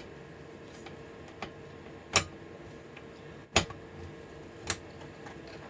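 Three sharp clicks of a metal drive bracket being handled and seated in a desktop computer case, about two, three and a half and four and a half seconds in, over a faint steady hum.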